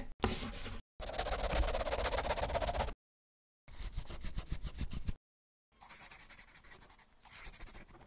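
Scribbling on paper, as with a pen: four bursts of quick back-and-forth scratching strokes with dead silent gaps between, the longest and loudest starting about a second in, the last one fainter.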